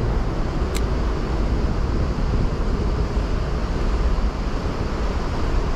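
Steady rush of river water running over stones, with wind rumbling on the microphone.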